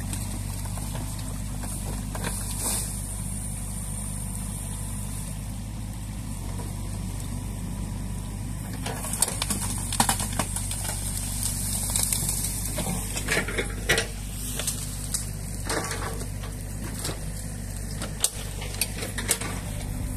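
New Holland Kobelco E50.2C crawler excavator's diesel engine running steadily, with water rushing through the breached beaver dam. From about nine seconds in, irregular knocks and clanks come from the bucket working in the dam.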